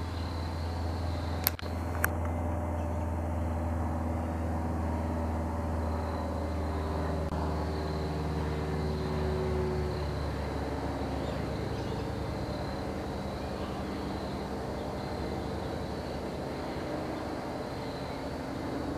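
Single-engine Cessna 172S Skyhawk propeller plane passing overhead: the steady drone of its four-cylinder Lycoming piston engine and propeller, its tone dropping slightly about halfway through as it goes by. Two sharp clicks come about one and a half and two seconds in.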